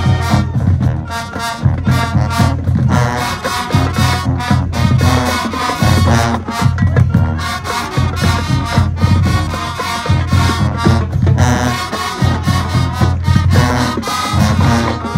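High school marching band playing a loud brass-heavy tune, trumpets and trombones over a pulsing low bass line.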